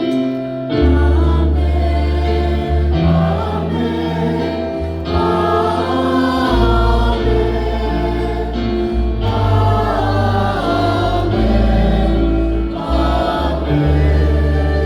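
Church choir singing a hymn with instrumental accompaniment; a deep sustained bass line comes in about a second in.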